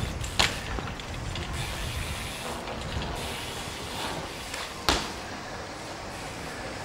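BMX bike tyres rolling over pavement with a steady low rumble, and two sharp knocks of the bike landing on the ground, about half a second in and again near five seconds.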